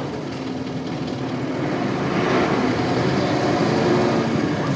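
Isuzu Cubic city bus's 8PE1 V8 diesel engine running, its note growing louder and stronger about halfway through, as under acceleration.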